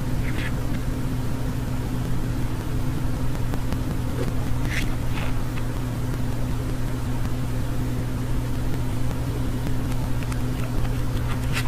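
A steady low hum, with a budgerigar's short high chirps near the start and again about halfway through.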